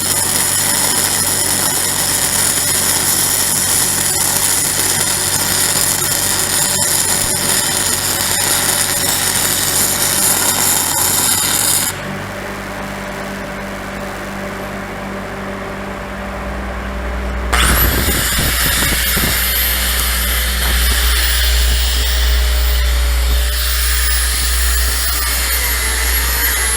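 Angle grinder working steel: it cuts out about twelve seconds in, leaving a low steady hum, and starts up again some five seconds later, its high whine rising and falling with the load.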